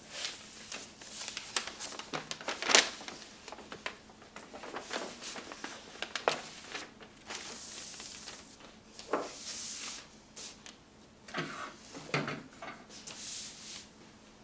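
Large old paper road map being handled and smoothed flat by hand: crinkling and crackling paper with soft swishes as the palms slide across it, the sharpest crackle about three seconds in.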